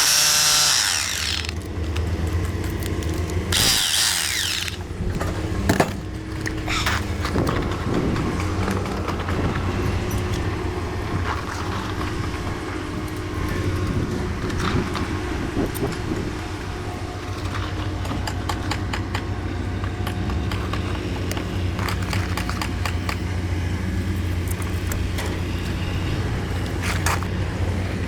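Construction-site machinery running with a steady low rumble, with scattered knocks and clanks and a short burst of loud hiss about four seconds in.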